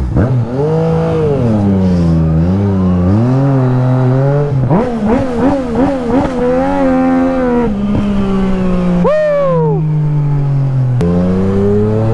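Yamaha MT-09's inline three-cylinder engine through a newly fitted Akrapovic titanium full exhaust, its pitch rising and falling as the bike is ridden through the gears. A quick run of short revs comes about five seconds in, a sharp rev up and down a few seconds later, and a shift just before the end.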